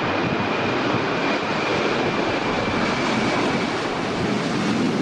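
Airplane engine sound effect: a steady rushing engine noise with a faint high whine, starting and stopping abruptly.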